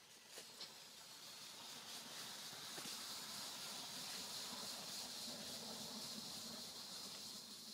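Faint steady high-pitched hiss that grows a little louder about two and a half seconds in, with two light clicks in the first second.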